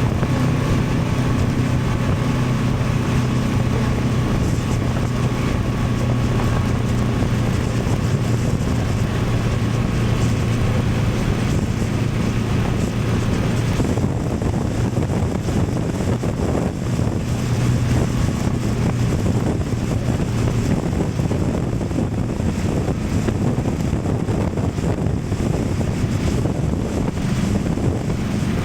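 Honda Transalp 750's parallel-twin engine running at a steady cruise with wind rushing over the action camera's on-board microphone. About halfway through the engine note drops back and the wind and road noise take over.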